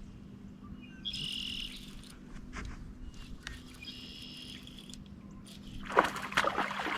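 A high, buzzing animal call of several stacked tones, heard twice about three seconds apart, over a faint steady low hum. A short noisy burst about six seconds in is the loudest sound.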